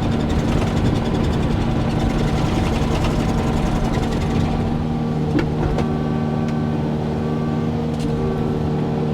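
Excavator's diesel engine running steadily at a constant speed, with a single clunk about five seconds in.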